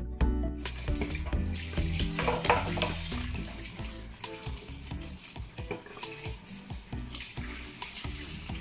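Kitchen tap running into a stainless steel sink while hands rinse and handle freshly cleaned needlefish, with splashes and small knocks of fish against the basin. The water starts about a second in, as background music stops.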